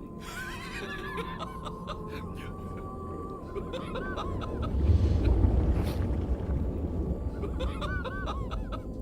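Layered sound effects: a steady high tone and bursts of short, squeaky arching chirps over a low rumble that swells loudest about five seconds in.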